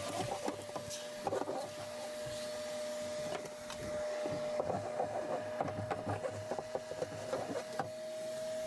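Small shop vac running with a steady whine while sticks and debris click and rattle through its hose; its suction is choked by a clog that the owner places at the vacuum's inlet.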